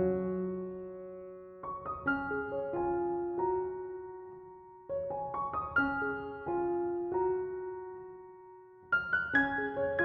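Slow, gentle solo piano music: short phrases of notes that ring and fade away, with a new phrase starting about every three to four seconds.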